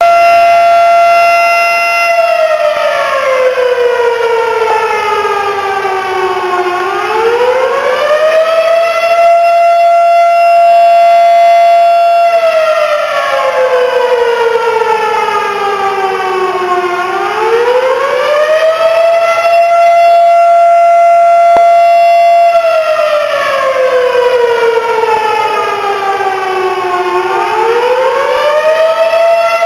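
Outdoor fire siren sounding a fire alarm: a loud wail that holds a high tone for a few seconds, slides slowly down over about four seconds, then climbs quickly back up. It goes through about three such rise-and-fall cycles, roughly ten seconds apart.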